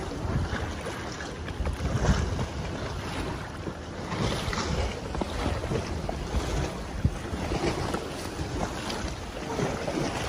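Wind buffeting the microphone with a low rumble, over water lapping and splashing around a kayak as it is paddled, with an irregular paddle splash every second or two.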